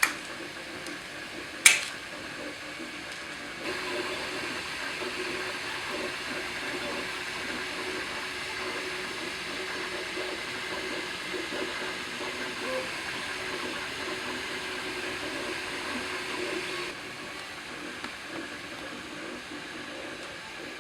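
Easy Cheese aerosol can spraying cheese in a long steady hiss that starts about four seconds in and stops abruptly near the end, preceded by one sharp click about two seconds in.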